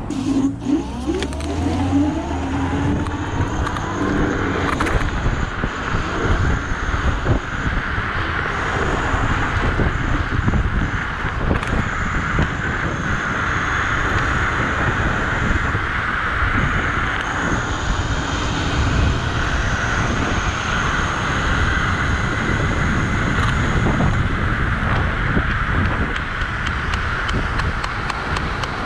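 Dualtron electric scooter pulling away and riding at speed: the motors' whine rises in pitch during the first few seconds as it accelerates from a stop, then wind rush over the microphone and tyre noise, with a thin high whine holding through the middle.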